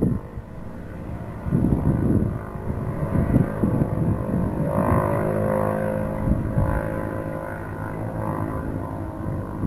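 Jet airliner's engines heard from a distance as it rolls out on the runway after touchdown: a steady hum that swells about halfway through and slowly fades. Wind buffets the microphone in the first seconds.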